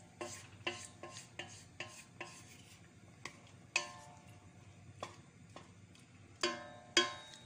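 Wooden spatula stirring shredded chicken in a stainless steel pot, clacking against the pot's rim and sides at an irregular pace of about two knocks a second, some knocks leaving a short metallic ring.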